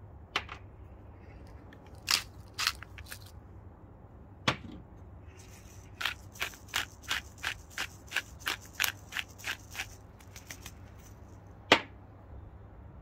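Pepper mill being twisted, a run of even clicks about three a second for some four seconds in the middle, with a few separate clicks before it and one sharp knock near the end.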